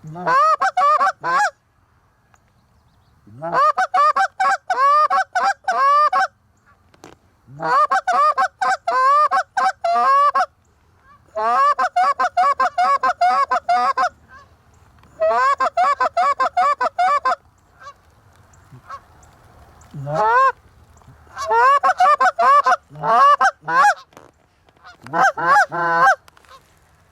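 Canada goose honks and clucks in rapid runs. They come in bursts of two to three seconds, each split by a short pause, about eight times over.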